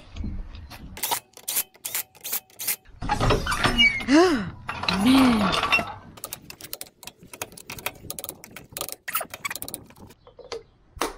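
Hand-tool work on a jacked-up wheel: a run of sharp metallic clicks like a ratchet, and midway two short rising-and-falling squeaky tones.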